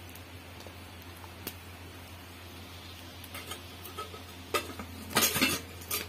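Curry gravy simmering with a faint steady hiss in an iron kadhai. About four and a half seconds in comes a brief clatter of metal utensils against the pan, the loudest sound.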